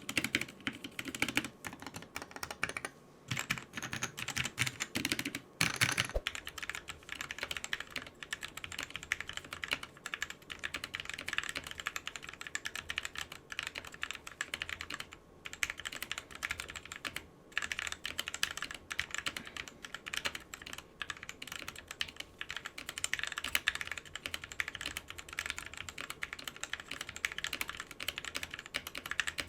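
Continuous typing on a mechanical keyboard fitted with pre-lubed Gateron Cap Yellow linear switches: a fast, uneven stream of key clacks.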